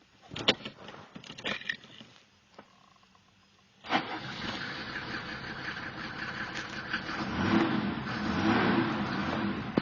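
A few clicks, then about four seconds in the Mercedes-Benz W124 300D's OM603 inline-six diesel starts and runs. Its sound swells near the end. This is the engine whose owner reports a knock.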